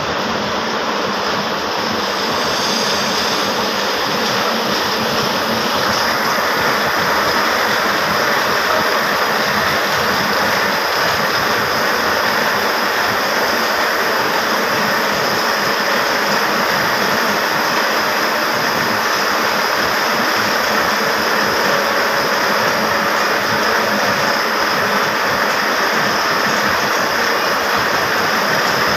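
Textile machinery in a powerloom shed running steadily, with a sectional warping drum turning: a loud, dense, unbroken mechanical clatter and rush that grows a little louder in the first few seconds.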